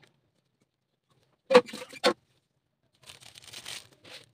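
Two sharp clanks against a metal cooking pan, about half a second apart, as food is put into it, followed by about a second of soft rustling handling noise.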